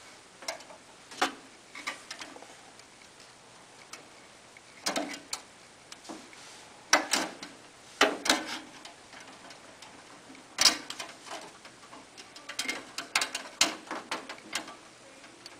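Copper ground wire being fitted to the back of a steel electrical box by hand: irregular metal clicks, taps and short scrapes, with louder knocks about five, seven, eight and ten and a half seconds in.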